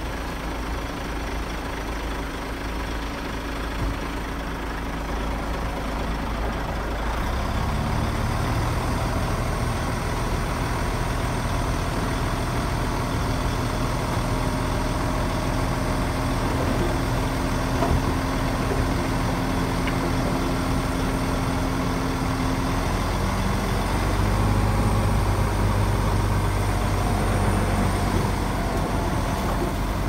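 Heavy diesel engine of an earthmoving machine running steadily, its note stepping up and growing louder about seven seconds in and again a few seconds before the end.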